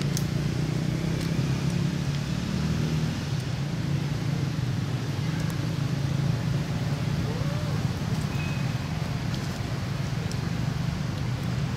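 A steady low engine hum runs throughout, with a few faint clicks and a brief short call about seven seconds in.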